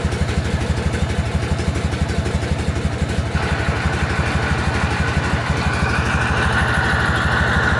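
1963 BMW R60/2's flat-twin engine idling with an even beat. About a third of the way in the sound changes: a higher whine comes in and grows louder toward the end, as the clutch lever is let out and the gearbox is driven.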